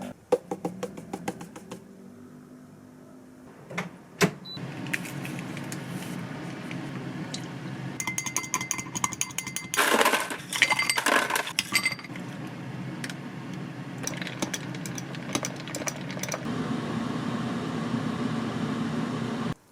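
Kitchen work sounds: scattered clicks and clinks of utensils and cookware over a steady hum, with a burst of clattering about halfway through.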